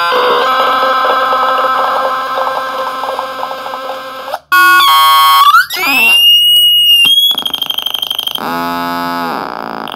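Homemade oscillator noise synthesizer played by hand on its knobs and switches. A buzzing chord of several tones cuts out about four and a half seconds in. A loud high tone then sweeps upward in pitch and turns into a fast-pulsing high beep, with a low buzz dipping down and back near the end.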